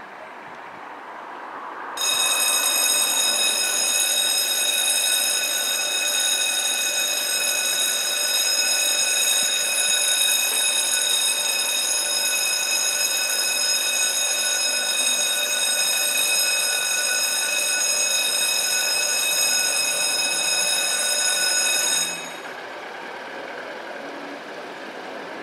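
Level crossing warning bell starts suddenly about two seconds in and rings steadily for about twenty seconds while the red lights flash and the barriers lower, warning of an approaching train. It cuts off abruptly once the barriers are down, leaving a quieter noise.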